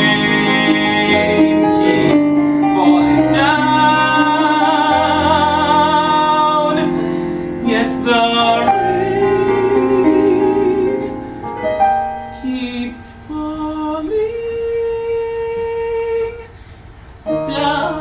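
Music: a singing voice holding long notes with vibrato over piano accompaniment, at the close of the song. The music thins out and drops briefly near the end before picking up again.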